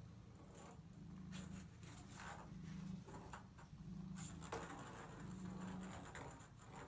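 Domestic longhair cat purring, a low rumble that swells and eases with each breath, with scattered light taps and clatters of a ping pong ball against the bathtub.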